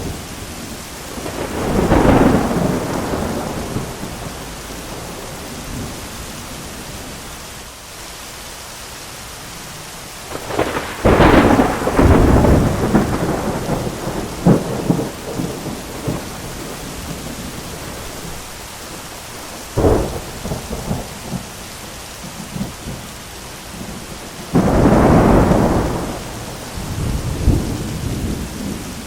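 Thunderstorm: steady heavy rain with four claps of thunder. A rolling peal comes about two seconds in; a sharp, loud crack follows around the middle and rumbles on for several seconds; a short crack comes later; and another heavy clap comes near the end.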